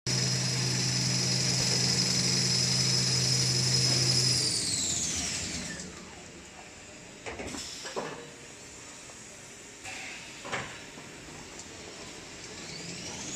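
Toilet paper production line machinery running with a steady hum and high whine. About four seconds in, the whine falls in pitch as the machine slows down, and a few knocks sound in the quieter middle. Near the end the whine rises again as the machine speeds back up.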